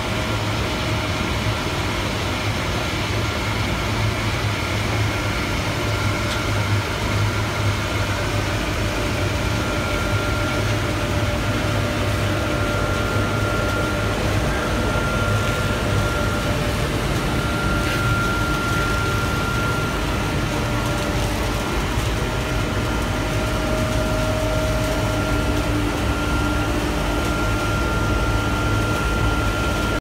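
A 1400 kW pulverised coal and wood powder burner firing, with its blower fan running: a steady, loud rush of flame and air with a low hum and a thin steady whine, unchanged throughout.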